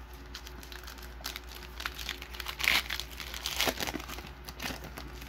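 Foil wrapper of a 2022 Panini Diamond Kings trading-card pack crinkling and crackling as it is torn open by hand, in a run of short crackles with the loudest a little past the middle.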